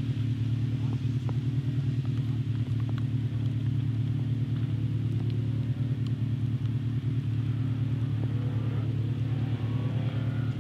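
Rally car's engine idling steadily, a low, even, rapidly pulsing note with no revving.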